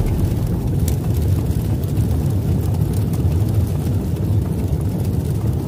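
Steady, deep rumbling sound effect, a fire-and-smoke intro rumble.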